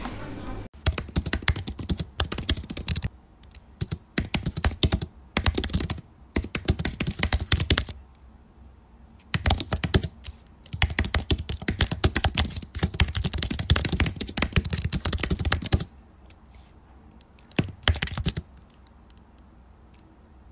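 Typing on a computer keyboard in quick runs of keystrokes, broken by short pauses, mostly stopping in the last few seconds apart from one brief burst.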